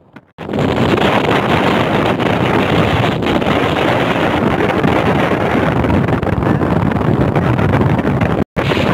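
Strong typhoon wind buffeting a phone's microphone: loud, steady wind noise. It starts abruptly after a moment of silence and cuts out for an instant near the end.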